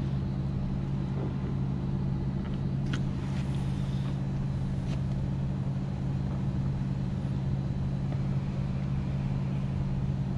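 A steady low mechanical hum, with a few faint clicks from hands working small bolts and a plastic mount.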